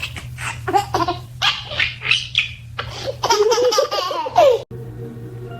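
A baby laughing in a run of short, high-pitched bursts that stop suddenly a little before the end.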